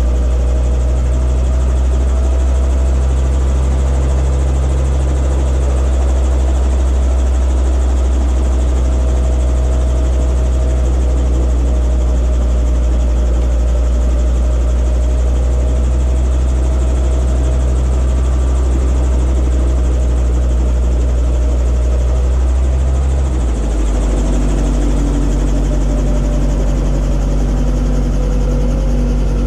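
Robinson R22 helicopter running on the ground, heard from inside the cockpit: a loud, steady low drone with a fainter whine above it. About three-quarters of the way through, the low drone changes pitch and settles at the new note.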